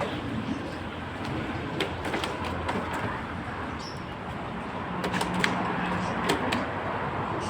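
Busy crowd hubbub with indistinct background voices, steady throughout, with scattered sharp clicks and knocks.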